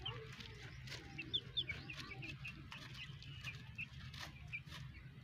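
Hens and young chickens foraging and calling: soft low clucks mixed with many short, high peeps scattered throughout, over a steady low hum.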